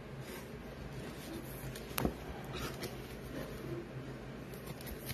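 Quiet handling of a clear plastic card sleeve as a trading card is slipped into it on a wooden table, with one sharp tap about two seconds in.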